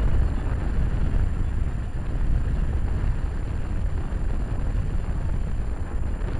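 Steady rushing wind on the microphone with low road rumble from a moving car.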